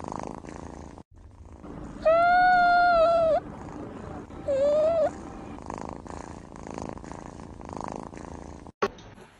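A kitten stretching in its sleep purrs softly, swelling about once a second. About two seconds in it gives a long, level mew, and a shorter rising mew follows about a second later. A short click comes near the end.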